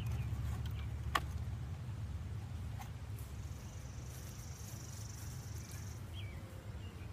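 Outdoor ambience with a low wind rumble on the microphone, a single sharp click about a second in, a thin high steady buzz from about three to six seconds in, and a few faint short chirps.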